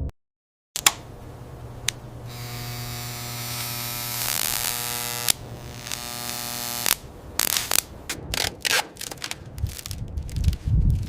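A small electric motor whirs steadily for about five seconds and stops, followed by a run of irregular mechanical clicks and clanks.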